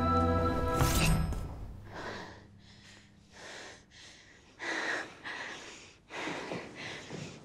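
Music with held tones stops abruptly about a second in, then a young woman breathes heavily in a series of gasping breaths, out of breath.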